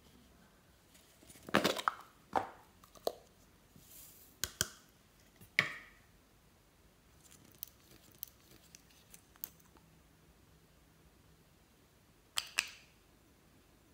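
Sharp plastic clicks and short rattles of small containers being handled and opened: a pink plastic pot and a glitter nail-polish bottle with a screw cap. The clicks cluster in the first few seconds, a few faint ticks follow, and a louder double click comes near the end.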